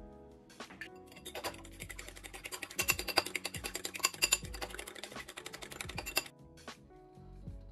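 Fork beating eggs in a ceramic bowl: rapid metal-on-ceramic clicking that starts about a second and a half in and stops about six seconds in.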